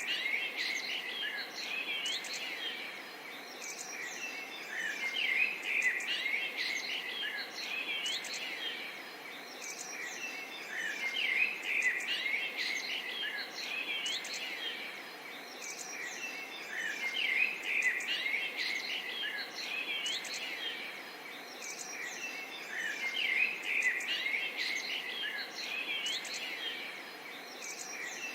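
Dawn-chorus-like mass of songbirds chirping and twittering, many calls overlapping, over a steady background hiss; the chorus swells and eases every few seconds.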